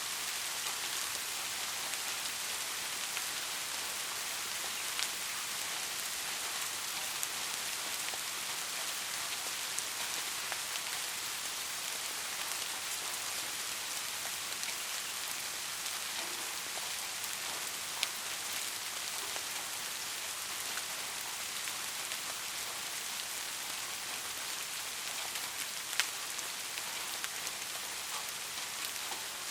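Soft, steady rain falling on a surface, an even hiss with scattered individual drop ticks and a few sharper drips.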